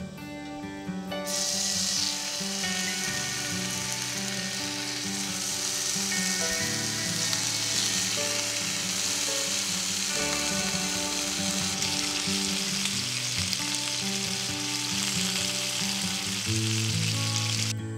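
Raw bacon strips sizzling and frying in a hot cast-iron skillet. The hiss starts about a second in as the strips go into the pan, holds steady, and cuts off just before the end, over background music.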